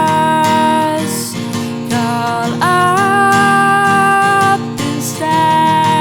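A song: a woman singing long held notes, sliding up into some of them, over strummed acoustic guitar.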